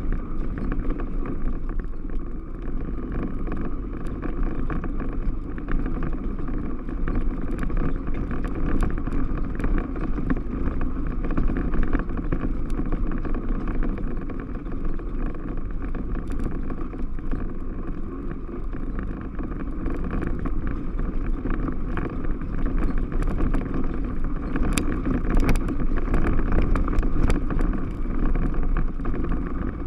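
Yamaha Rhino 660 side-by-side's single-cylinder engine running steadily while driving on a trail. Short clicks and knocks from the machine over the ground are scattered through it, thickest near the end.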